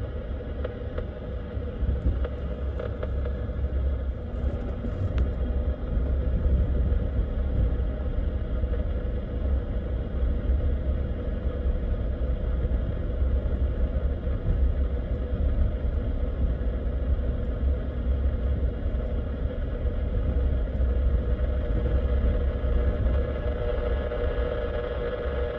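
Pickup truck driving slowly, a steady low rumble of engine and tyres heard from inside the cab, under an even hiss and hum from the Yaesu FT-857D HF radio's speaker as it listens for power-line noise.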